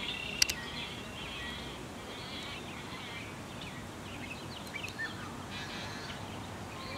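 Many birds calling in short chirps over a steady low outdoor rumble, with two sharp clicks about half a second in.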